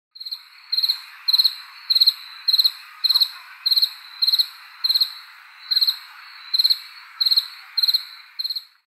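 A cricket chirping steadily, a short high trill about every half-second to three-quarters of a second, over a steady hiss of background insects. It stops shortly before the end.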